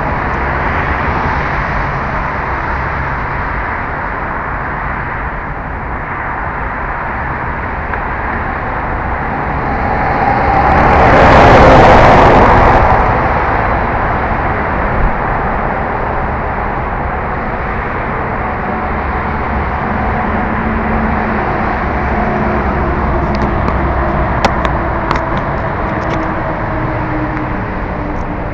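Steady road-vehicle noise picked up by an EKEN H8 Pro action camera's built-in microphone, swelling to its loudest about twelve seconds in, then easing back. A few short sharp clicks come near the end.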